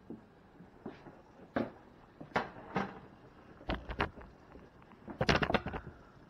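Scattered knocks and clunks of kitchen handling as a camera is carried over and set down by the stove and a plate of breaded chicken is put down. A low thump comes about four seconds in, and the loudest burst of quick knocks comes near the end.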